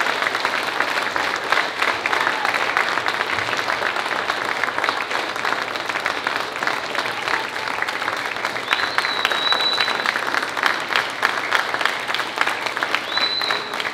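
Audience applauding steadily, many hands clapping. Two brief high steady tones rise above the clapping in the second half.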